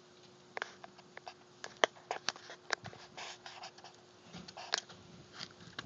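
Scattered light clicks and knocks of a .410 shotgun being handled as its action is closed and readied, with the sharpest click a little under two seconds in and another near the end. A faint steady hum runs underneath.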